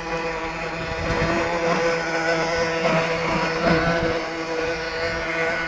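Lesro Rapier model boat's small motor running steadily at a nearly constant pitch.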